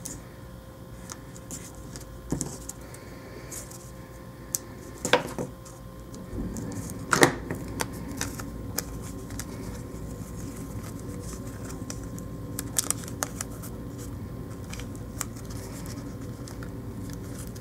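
Small clicks and rustles of paper and satin ribbon being handled and pressed together with glue dots, with a few sharper clicks about five and seven seconds in, over a faint steady hum.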